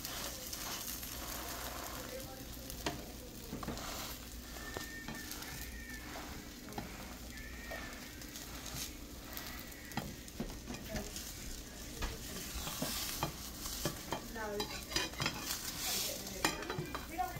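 Beaten eggs and a tortilla frying in a pan with a steady sizzle, while a spatula scrapes and knocks against the pan. The scraping and knocking get busier near the end.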